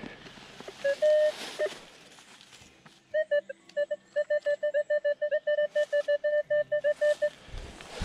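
Minelab Equinox 800 metal detector sounding a target tone as its coil passes over a dug hole: a couple of short mid-pitched beeps about a second in, then a rapid string of the same beeps, about seven a second, showing metal still deeper in the hole. A low thump near the end.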